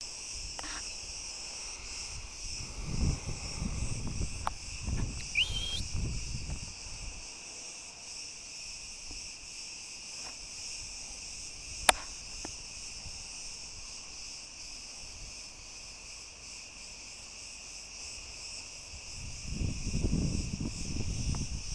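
Steady, high-pitched chorus of insects chirring. Rustling movement through dry grass comes a few seconds in and again near the end, with one sharp click about twelve seconds in.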